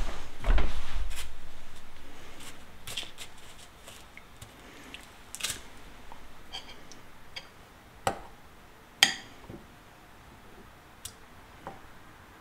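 A thump and low rumble of the camera being handled about half a second in, fading over the next few seconds. Then scattered light clicks and taps as pheasant pieces are pressed and turned in breadcrumbs on a paper plate, the sharpest two about a second apart near the middle.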